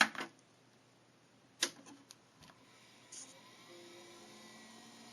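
Apple Macintosh Performa 200 being switched on: a loud click at the start, another click about a second and a half later, then the machine powering up with a faint steady hum and a very quiet startup chime.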